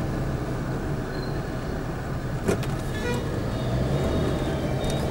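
Steady engine and road rumble heard from inside a vehicle moving through city traffic, with a sharp knock about halfway through.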